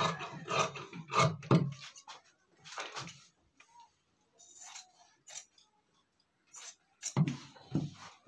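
Tailor's shears cutting through pant cloth: a quick run of cutting strokes, a few seconds of faint, scattered handling sounds, then another run of cuts near the end.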